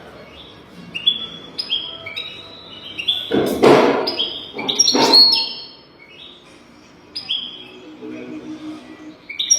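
European goldfinch singing: a quick run of short, high twittering notes repeated again and again, the kind of song used as a tutor recording for young goldfinches. Two brief loud noises cut through the song about three and a half and five seconds in.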